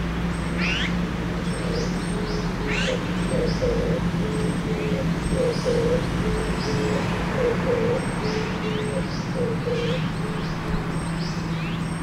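A dove cooing a long series of low notes that alternate between two pitches. Short high bird chirps sound throughout, over a steady low hum of traffic.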